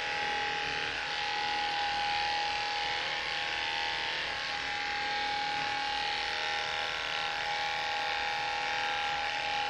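Cordless electric dog clippers running steadily while trimming a dog's short coat.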